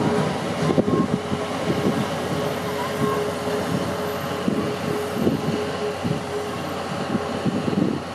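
C11 tank steam locomotive moving slowly along the station tracks, with a steady hum that stops about six seconds in over an irregular low rumble.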